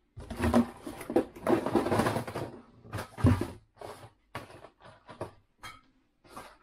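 Cardboard box flaps and plastic blister packs of fishing lures rustling and knocking as they are handled and set down on a table: busy for the first three seconds or so, then sparser clicks and rustles.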